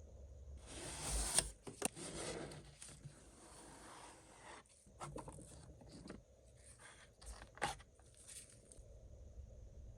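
Hands and hobby tools working plastic model-kit parts: scraping and rubbing, with sharp clicks, two close together about a second in and another later on.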